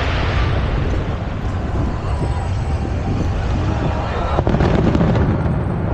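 Outdoor crowd murmur with wind rumbling on the microphone, and one sharp firework bang about four and a half seconds in.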